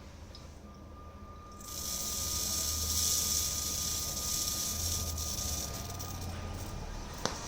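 Hydroxy gas machine humming steadily. About two seconds in, an even hiss of gas starts from its outlet and keeps going, with a single sharp click near the end.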